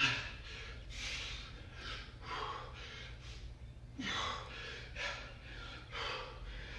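A man breathing hard from exertion mid-workout, with short gasping, huffing breaths about once a second.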